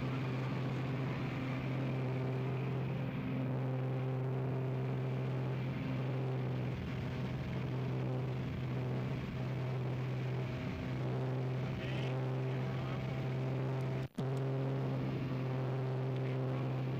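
Steady low engine drone holding one even pitch with overtones, cutting out for an instant about fourteen seconds in.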